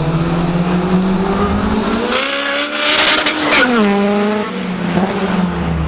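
Turbocharged Honda B16 four-cylinder accelerating hard, its engine note and a high turbo whine climbing over the first two seconds, then a rush of noise midway as the pitch drops and it pulls away.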